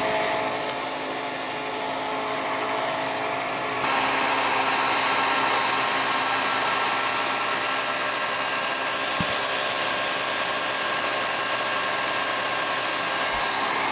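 Revere P-90 film projector running with its lamp on: a steady whir and hum, mostly from its motor, with the film mechanism itself fairly quiet. It gets louder and hissier about four seconds in and then runs on steadily.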